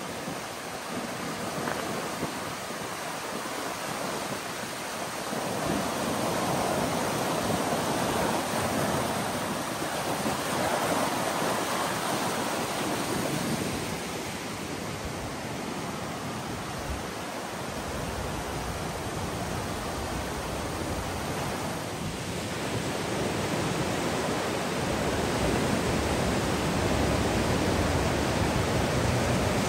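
Steady rushing roar of a swollen, flooded river. It swells and eases, and is loudest in the last few seconds.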